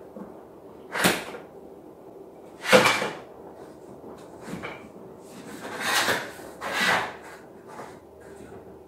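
Cabinet drawers or doors opened and shut about five times in quick succession, each a brief slide ending in a knock, the loudest a little under three seconds in.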